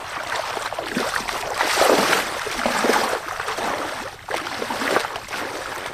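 Splashing and sloshing in shallow muddy water, in uneven swells, loudest around two seconds in and again near the end.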